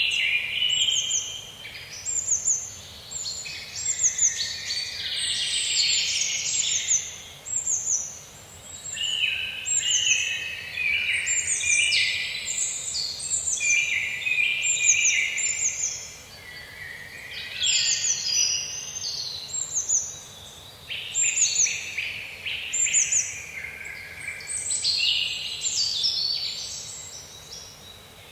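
A chorus of several songbirds calling and singing over one another without a break, with many short high falling notes, over a faint steady hiss of forest background.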